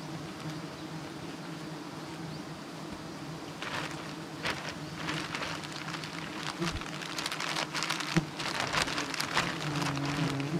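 A swarm of giant honeybees buzzing steadily around their comb. From about three and a half seconds in, crackly rustling from the comb and plastic bag being handled becomes the loudest sound.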